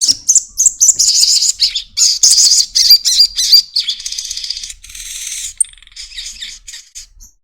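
Little spiderhunter (sogon) singing: a fast, dense run of loud, high chattering chirps that thins into quieter twittering over the last few seconds.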